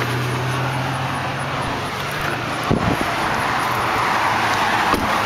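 Steady low hum and rushing noise inside a car, with the rush swelling in the second half and a single knock about three seconds in.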